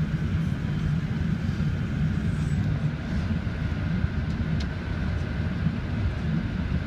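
Steady low roar of jet engines and rushing air heard inside an airliner cabin on the landing approach, with a faint steady high tone running through it.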